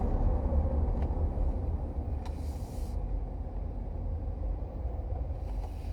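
Low steady rumble of a car heard from inside the cabin while driving, with a couple of faint clicks and a brief hiss about two seconds in.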